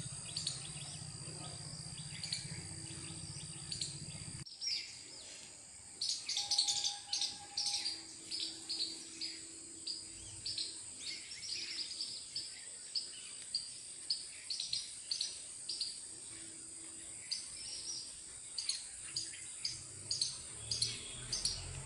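Birds chirping in garden trees: many short, high, repeated calls, about one or two a second, busiest from about six seconds in.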